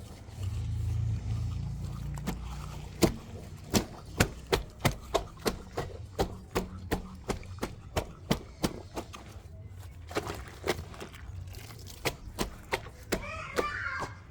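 A low rumble for about two seconds, then a long irregular series of sharp knocks, roughly two a second. Near the end a high squeal begins, wavering in pitch.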